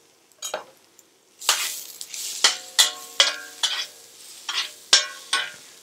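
Chopped onions and garlic sizzling in a frying pan while being stirred, the utensil scraping and clicking against the pan. The sizzle and stirring start about a second and a half in.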